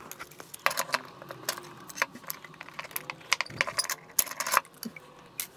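Irregular small clicks and rattles of metal hardware as the metal enclosure, circuit board and parts of a guitar effects pedal are handled during disassembly.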